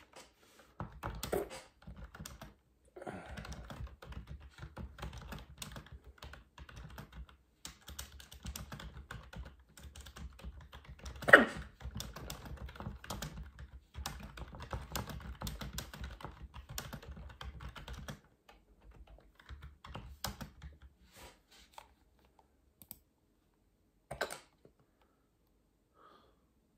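Rapid clicking of typing on a computer keyboard, dense for most of the first eighteen seconds and sparse after. It is broken by a few sharp hiccups, the loudest about eleven seconds in and another near the end.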